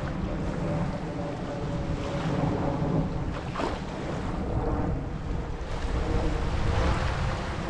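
Gulf of Mexico surf washing onto a beach in gentle surges, with wind rumbling on the microphone. A faint steady hum runs underneath.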